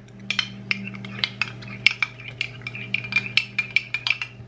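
A metal spoon stirring gelatin with boiling water in a glass. It clinks against the glass sides in a quick run of light taps, about four a second, while the gelatin dissolves.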